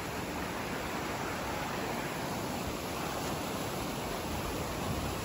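Shallow, fast river rushing over rocks and small cascades: a steady, even wash of water noise.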